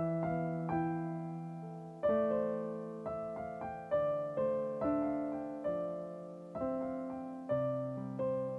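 Digital piano played slowly and softly: a gentle melody over chords, struck about once a second and each left to ring and fade, with a deeper bass note coming in near the end.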